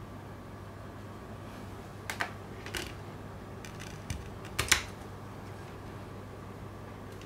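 A handful of short, sharp plastic clicks as a Blu-ray disc is set into its plastic case and pressed onto the centre hub, the loudest click about four and a half seconds in, over a steady low hum.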